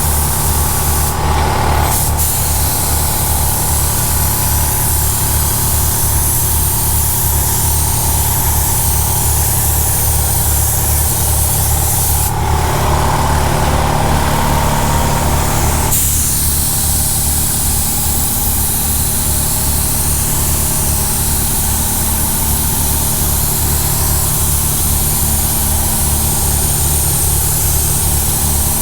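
Air-fed paint spray gun hissing as it sprays direct-to-metal primer, over a steady, evenly pulsing low hum. The hiss shifts briefly about a second in and again for a few seconds in the middle.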